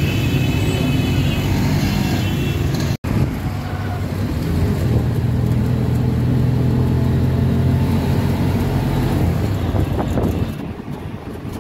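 Auto-rickshaw's small engine running steadily under way through street traffic, heard from inside the open passenger cabin. The sound cuts out for an instant about three seconds in.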